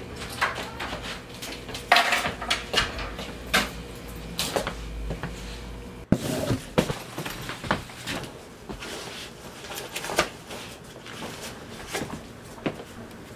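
A door and household things being handled in a small room: a long, uneven run of knocks, clicks and bumps, with a low hum underneath until about halfway through.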